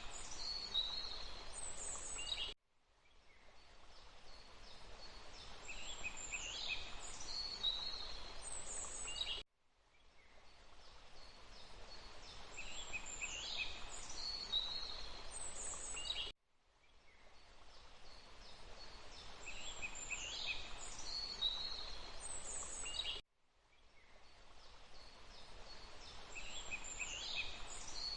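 Several birds chirping and giving high falling whistles over a steady hiss of running water. The same stretch of about seven seconds repeats as a loop: each time it cuts out suddenly, then fades back in.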